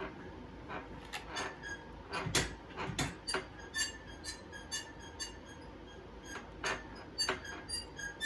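A desk squeaking and clicking over and over, short sharp squeaks coming about two or three a second, turning higher and more squeaky after the first few seconds.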